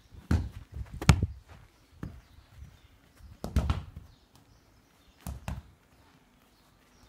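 A football being kicked and knocked about on artificial grass: a handful of dull thuds spread over several seconds, the loudest about a second in.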